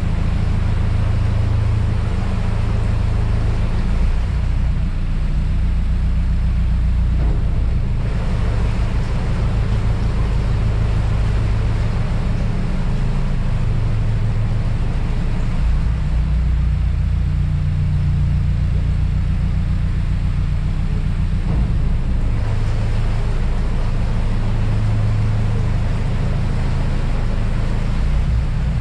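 Narrowboat diesel engine running steadily, a low, even drone.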